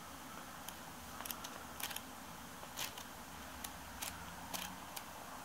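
Faint paper rustling and soft irregular clicks of manga pages being turned and handled by hand.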